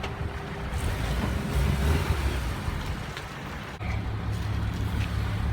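Vehicle engine running at low revs during a slow manoeuvre, its steady low note shifting to a new pitch about four seconds in.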